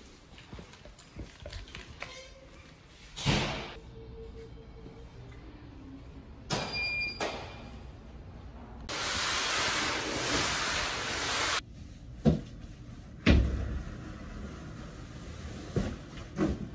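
Clicks and knocks at an electronic package locker as its door opens, with a short electronic beep about seven seconds in and a few seconds of steady hiss after it, followed by a few more sharp knocks.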